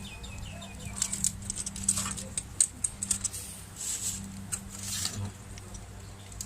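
A run of light clicks and clinks from a spoon working through the pork salad in a bowl, with a few soft rustles, over a steady low hum.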